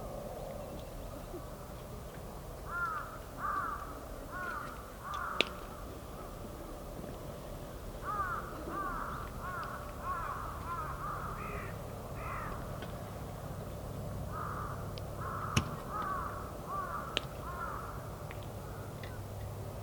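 Crows cawing, in several runs of short calls, over the soft crackle of a wood fire with a few sharp pops.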